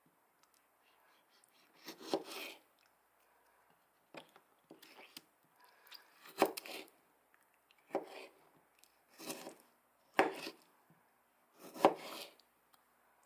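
Small knife cutting slices from a fruit on a plastic cutting board: about eight separate cuts, roughly one every second and a half, each a short sharp knock as the blade comes through onto the board.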